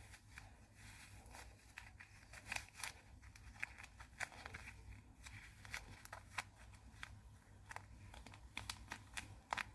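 Faint, irregular crinkling and rustling of paper and tape as cotton stuffing is pushed into a homemade paper squishy.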